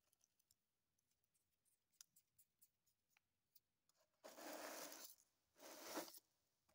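Fine steel millings trickling onto cardboard over a strong magnet, giving faint scattered ticks, then two bursts of scraping rustle about four and five and a half seconds in.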